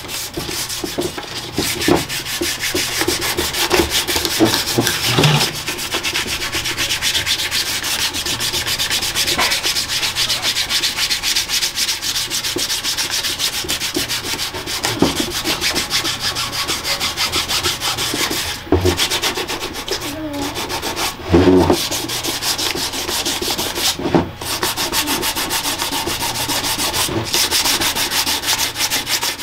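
Fine 1500-grit sandpaper rubbing back and forth over the primed surface of a 3D-printed helmet in quick, even strokes, broken by a few short pauses.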